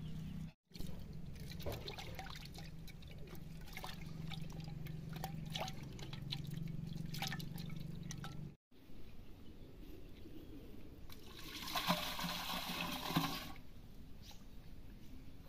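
Liquid trickling and dripping with small clicks, then a louder pour with splashing for about two seconds near the end. The sound cuts out abruptly twice.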